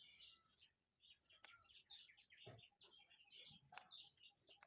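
Faint birds chirping steadily in the background, many quick high notes, with a few light clicks.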